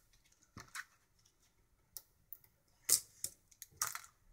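Scattered small clicks and crinkles of packaging tape tabs being peeled off the plastic casing of a cutting machine, the sharpest about three seconds in and again near the end.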